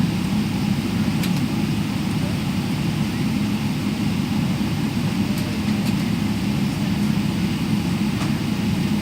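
Steady low roar of a jet airliner's engines and airflow heard inside the passenger cabin in flight, even and unchanging.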